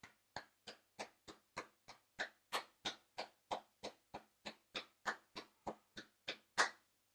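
One person clapping their hands in a steady rhythm of about three claps a second, some twenty claps in all. The last clap is the loudest.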